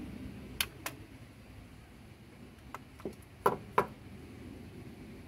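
A handful of sharp metal clinks and knocks at irregular intervals, two under a second in and a louder cluster a few seconds later, from a 16mm socket and extension being worked on a nut in a car's engine bay, over a low steady background hum.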